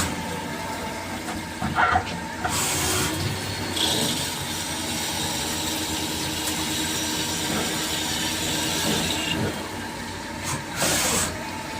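CNC machine running with a steady hum and whine. Short hissing bursts come about two and a half seconds in and again near the end.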